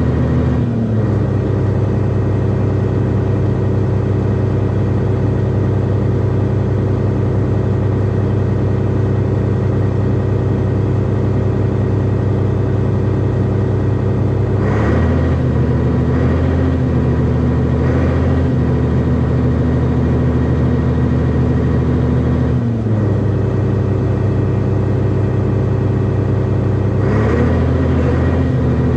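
Hyundai excavator's diesel engine running steadily under hydraulic work, its note stepping up at about the middle, dropping some eight seconds later and rising again near the end. Short knocks come at several of these changes.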